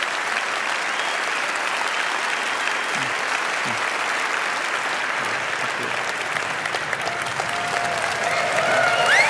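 Large audience applauding steadily, growing a little louder near the end as cheers join in.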